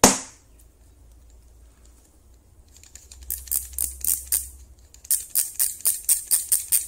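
A single sharp knock at the start, then the ratchet thimble of a digital micrometer clicking as it is turned down onto a welded metal strip: a run of sharp clicks about four a second through the second half.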